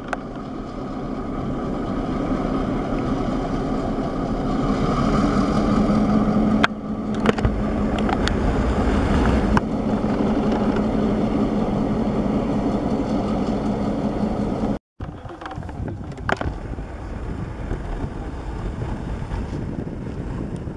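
EMD FP7 and GP38 diesel locomotives running past, a steady engine drone that grows louder over the first several seconds. About fifteen seconds in it cuts off briefly and gives way to quieter wind noise on the microphone.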